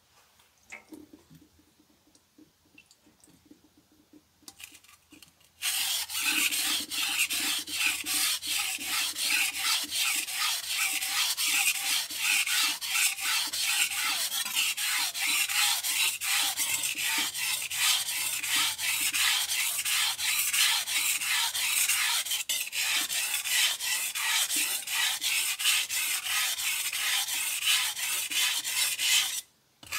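Kitchen knife blade being sharpened on a whetstone: steady, rapid back-and-forth scraping strokes of steel on stone. The strokes start after about five seconds of near silence and stop just before the end.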